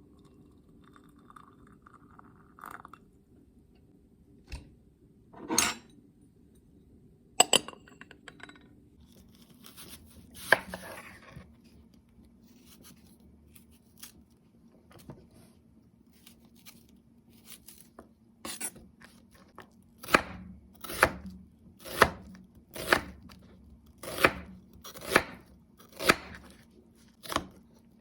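A few scattered knocks and handling noises, then from about twenty seconds in a knife chopping on a cutting board in steady strokes, roughly one a second.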